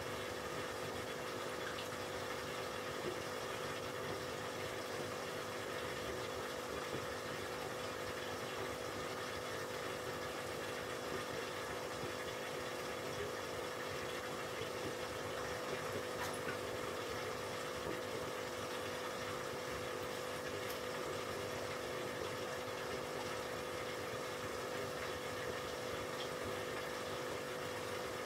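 Aquarium pump running with a steady hum, over the even hiss of bubbling tank water.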